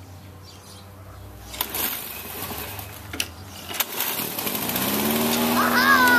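Gas push lawn mower being started: a few sharp knocks as the starter rope is pulled, then the engine catches and speeds up, settling into a steady run near the end.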